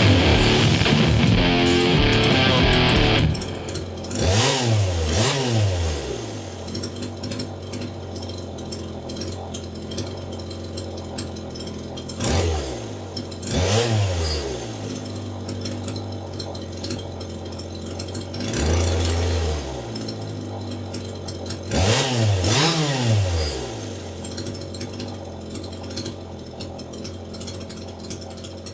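Rock guitar music ends about three seconds in. Then a two-stroke chainsaw engine idles steadily and is revved up and back down in short bursts several times, the chain running free on the bar without cutting wood.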